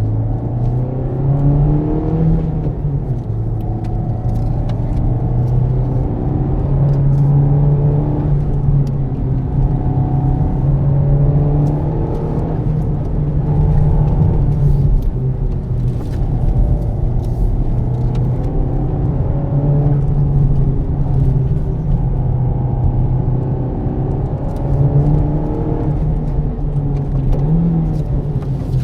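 Honda Civic Type R FK8's 2.0-litre turbocharged four-cylinder engine heard from inside the cabin while driving. The engine note climbs repeatedly and drops back between pulls, over steady road noise.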